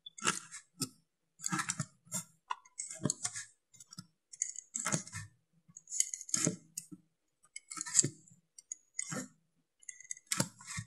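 Utility knife cutting a hole through the hard plastic bottom of a five-gallon bucket: a string of short, sharp cutting strokes at irregular spacing, roughly one a second.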